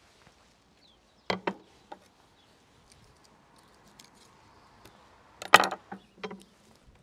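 A knife striking a wooden cutting board in a few separate chops: two quick knocks a little over a second in, a louder cluster of knocks about five and a half seconds in, and another near the end.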